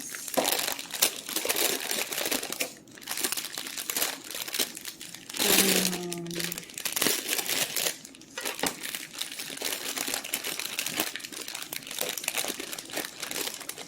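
Packaging crinkling and rustling as it is handled. A brief voice sounds a little past halfway.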